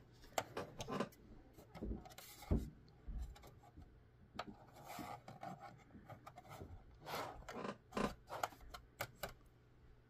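MSI DP10 Pro mini PC case panels being slid and handled: scraping and rubbing with scattered sharp clicks as the back panel is worked off.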